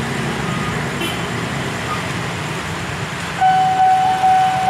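Motorbike and car engines running in stalled traffic at a railway level crossing. About three and a half seconds in, the crossing's electronic warning alarm starts: a steady high tone that pulses about twice a second, signalling an approaching train.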